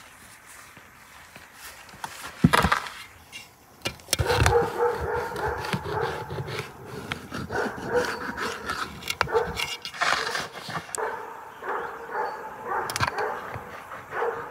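A dog whining repeatedly from about four seconds in, after a sharp knock about two and a half seconds in.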